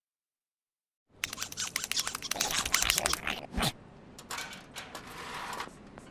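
Cartoon sound effect from a logo's soundtrack: after about a second of silence, a fast run of sharp clicks and clattering lasting a couple of seconds, then softer scratchy noise.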